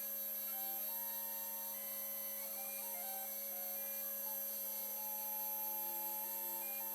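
Custom-built 5-axis CNC machine running, with several steady tones. Its stepper motors whine at pitches that jump up and down every fraction of a second as the axes move.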